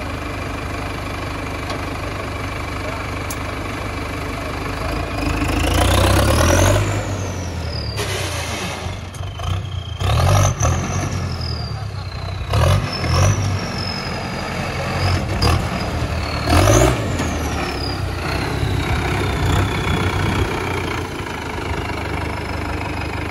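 Diesel engine of a modified Sonalika tractor with a straight exhaust stack, idling and then revved hard about five seconds in, followed by several shorter revs. Each rev brings a high whine that climbs and then falls away as the revs drop.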